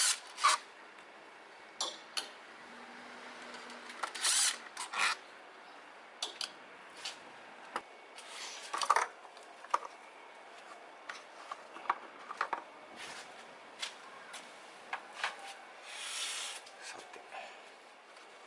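Tool work on a car engine's top end: scattered sharp metallic clicks and taps, with a few short rasping runs.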